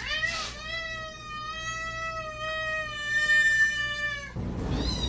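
A cat giving one long, drawn-out meow that lasts nearly four seconds and cuts off abruptly. In the last second it is followed by a different sound with a low rumble and high steady tones.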